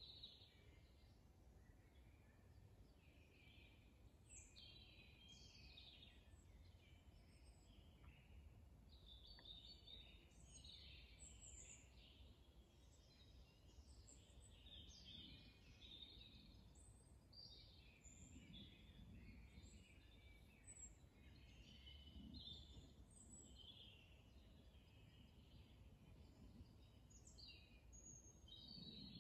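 Faint woodland birdsong: several small birds singing and calling in short, overlapping phrases, over a low steady rumble.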